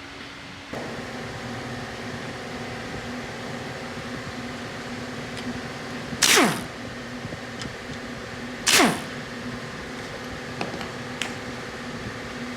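A steady mechanical hum with several fixed tones, which gets louder less than a second in. Two short, loud sweeps fall steeply in pitch, about two and a half seconds apart, with a few faint clicks after them.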